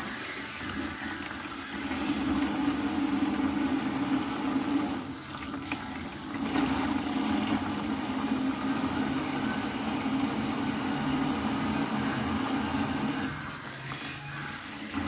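Water splashing and wet hands rubbing tilapia in a stainless-steel sink, over a steady low hum that breaks off briefly about five seconds in and fades near the end.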